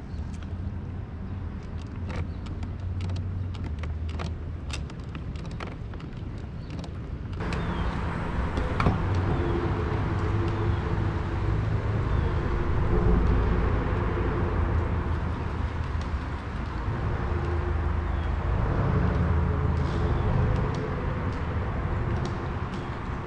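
Road traffic rumbling on the bridge overhead, heard from underneath, swelling about seven seconds in and coming and going in waves. Light clicks sound in the first several seconds.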